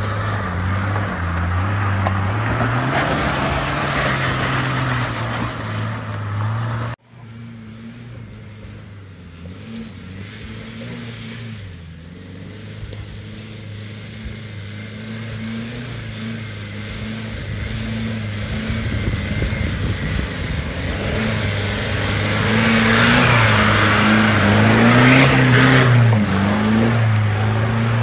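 Four-wheel-drive engines working slowly up a steep rocky track, the engine note rising and falling with the throttle. First a Toyota LandCruiser is heard, then the sound cuts off sharply about seven seconds in. A second 4WD follows, growing louder as it climbs closer near the end.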